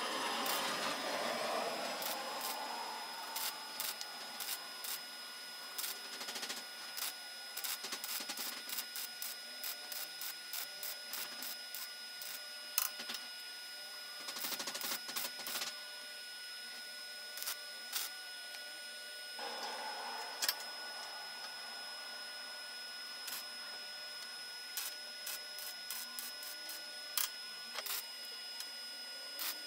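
Electric welding arc on thin sheet steel: short, irregular crackles and pops as tack and stitch welds are struck along a seam, with a few longer crackling runs. A faint steady high whine runs underneath.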